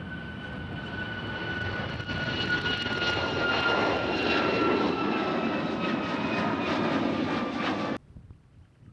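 Jet airliner's engines passing close by: a roar with a high whine that falls slowly in pitch, growing louder, then cutting off suddenly about eight seconds in.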